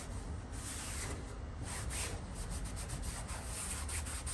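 Hand scrubbing strokes against the car's metal engine-bay panel, a quick, irregular back-and-forth rubbing as the surface is cleaned and scuffed before priming.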